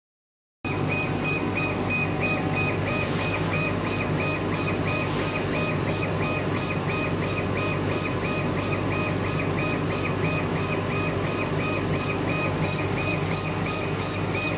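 LC1610N laser cutting machine at work, its head sweeping back and forth over plywood: a whine that repeats evenly several times a second over a steady low hum, starting abruptly about half a second in.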